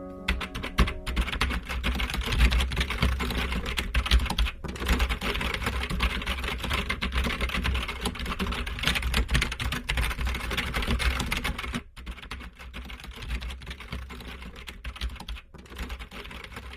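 Rapid typing on a computer keyboard, a dense stream of key clicks that grows softer about twelve seconds in.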